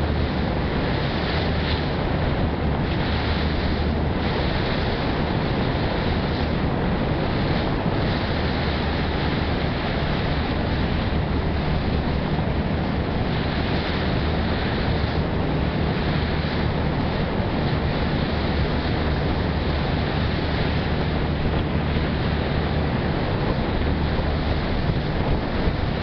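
Passenger ferry under way: a steady low engine drone under the rushing wash of water, with wind on the microphone.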